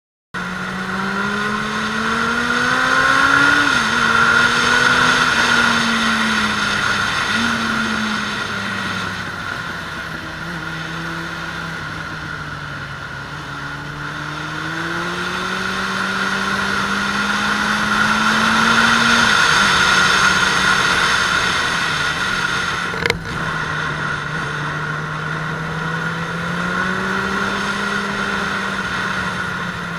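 Suzuki Bandit 600S inline-four engine under way, its pitch climbing with the throttle and dropping suddenly at gear changes, under a steady rush of wind. A single sharp click comes about three-quarters of the way through.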